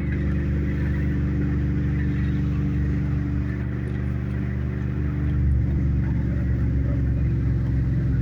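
Car engine and road noise heard from inside the cabin while driving: a steady low hum whose engine note shifts a few seconds in.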